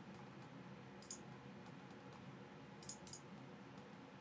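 Computer mouse clicks from a Logitech MX Master 2S, three short clicks: one about a second in and two in quick succession near the end, over a faint steady room hum.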